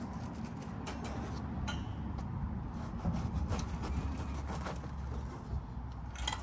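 Knife sawing back and forth through a crusty bun of a deep-fried oyster sandwich on a plate, with scraping, crunching strokes and small clicks of the blade. A low steady rumble runs underneath.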